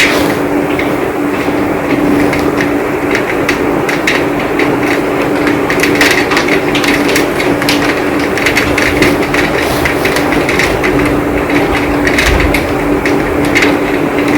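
Heavy rain falling steadily, with many sharp drop hits close by, thicker in the second half, over a steady low hum.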